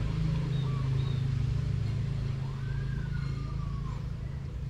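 A steady low motor hum, easing off a little near the end, with a few faint bird calls over it.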